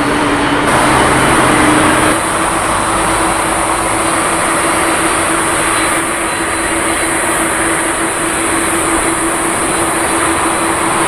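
Jet airliner engines running, a steady broad roar with a steady hum through it. The mix shifts about two seconds in, then holds steady.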